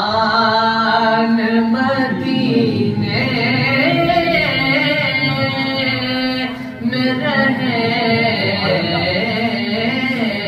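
A man's solo voice singing an Urdu naat, holding long drawn-out notes that waver up and down, with a short pause for breath about seven seconds in.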